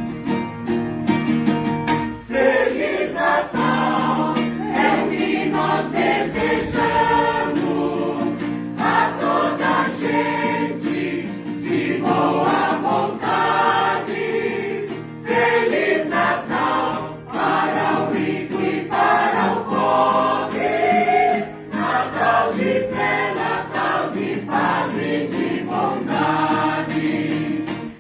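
Mixed choir of male and female voices singing a Christmas song with acoustic guitar accompaniment. The guitar plays alone for about two seconds before the voices come in.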